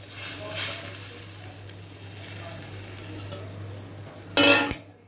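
Boiled mutton pieces sliding from a steel bowl into hot red curry gravy in a steel kadai, the gravy sizzling with a steady hiss. A brief louder sound breaks in near the end.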